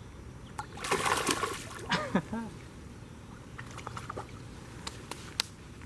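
A released bass splashing back into the water about a second in. A brief voice follows, then a few light taps.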